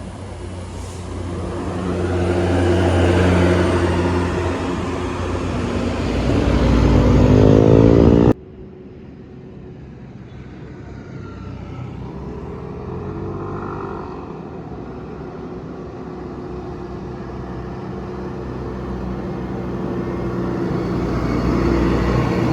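Large buses passing close by on the road: one bus's engine grows louder and rises in pitch as it comes near, then cuts off suddenly about eight seconds in. Quieter traffic follows, with another vehicle going by and a further one approaching near the end.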